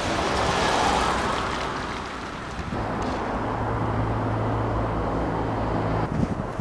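Outdoor wind noise on the microphone, then, from about three seconds in, a steady low engine hum of passing traffic that runs for about three seconds and stops abruptly.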